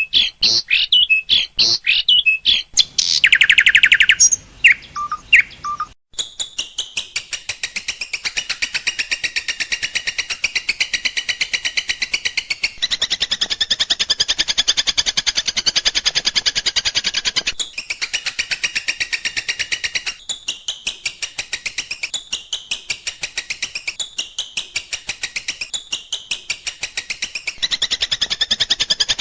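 Songbird calls: sharp, varied whistles and chirps for about the first six seconds, then a cut to a fast, high chattering song of about ten notes a second, running in long stretches with short breaks.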